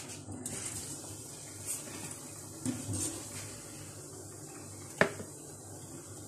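Sliced potatoes being dipped and turned by hand in a glass bowl of gram-flour batter: soft wet batter sounds, with a sharp knock against the bowl about five seconds in, over a low steady hum.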